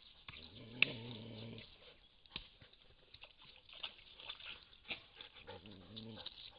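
An animal's low, drawn-out call twice, each over a second long, about a second in and again near the end, over scattered light clicks and patter from animals moving through the mud and puddle.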